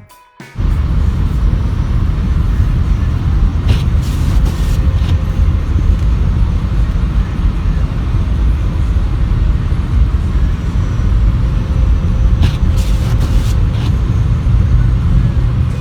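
A loud, steady low rumble that cuts in abruptly about half a second in, with two brief hissing rushes, a few seconds in and again near the end.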